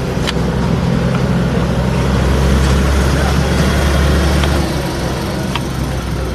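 A motor engine running close by, a steady low hum that grows stronger and then eases off about two-thirds of the way through, with a few sharp clicks over it.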